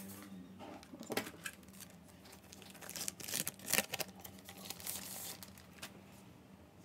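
Hands handling small parts during a laptop teardown: a few sharp clicks and light knocks, then a rustling, peeling or crinkling noise for about a second in the middle, over a faint steady hum.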